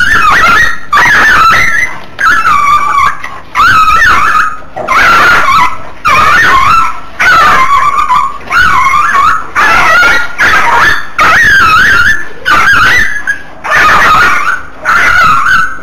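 Small puppy screaming in distress while larger dogs bite it: loud, high-pitched yelping cries that bend in pitch, about one a second with short breaths between.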